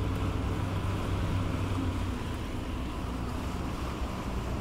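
A tugboat's diesel engines running steadily with a low hum, and its propeller wash churning the water along the hull, as the tug holds itself against the pier under power without lines.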